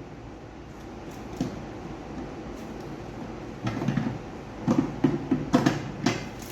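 Short knocks and clatters from handling a plastic appliance: one knock about a second and a half in, then a run of quick clunks in the second half.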